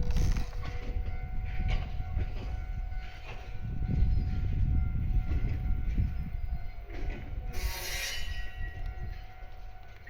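Train of E231 series cars being moved slowly by a shunting switcher, running past with a heavy low rumble. About eight seconds in there is a brief burst of high-pitched noise.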